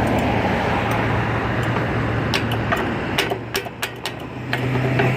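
Road traffic at an intersection: vehicles passing with a steady low engine hum, easing off briefly past the middle. A few sharp clicks sound in the middle.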